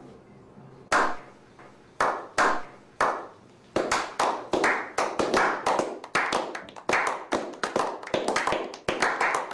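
A small group of people slow-clapping: single claps spaced about a second apart that speed up, about four seconds in, into quicker, steady clapping.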